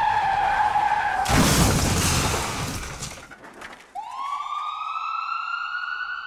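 A car's tyres screech, then a loud crash with breaking glass about a second and a half in that dies away over about two seconds. After a short lull, a siren starts at about four seconds in one slow rising wail.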